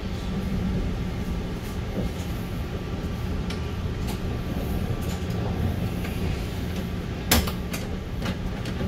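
Budd M3 electric train car running slowly, heard from inside the cab: a steady low rumble with scattered clicks and knocks as the wheels pass over rail joints and switches, and one sharp, loud click about seven seconds in.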